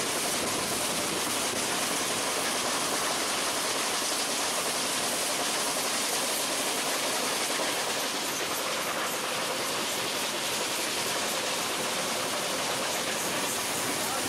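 Steam locomotive running along the line, heard from its cab at the open side window: a steady rush of wheel-and-rail noise and hiss.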